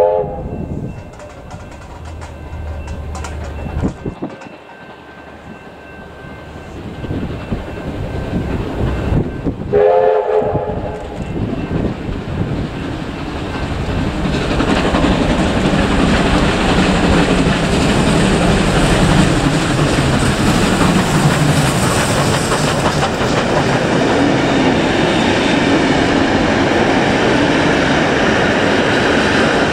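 Heritage train sounding a short chord blast of its horn, then a second blast about ten seconds in, as it approaches and runs past with wheels clattering over the rail joints; the train is loudest through the second half.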